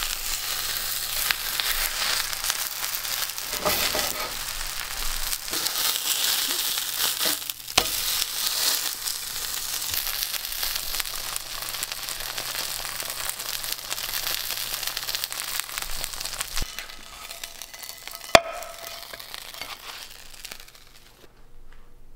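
Chicken jeon, a chicken and potato-starch pancake, frying in oil in a nonstick pan: a steady sizzle full of crackling that dies away near the end. A single sharp click sounds shortly before it fades.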